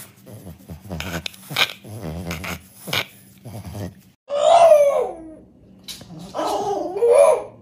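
French bulldog grumbling in low growly rumbles, then two drawn-out howling moans that rise and fall in pitch, the first about four seconds in and the second near the end.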